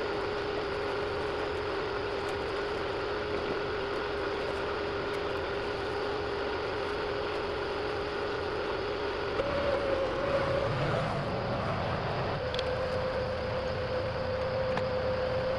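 Engine of heavy equipment running steadily, its pitch stepping up about halfway through as the revs rise, then settling.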